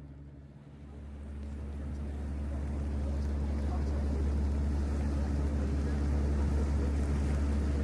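Boat engine running with a steady low drone, growing louder over the first few seconds and then holding even.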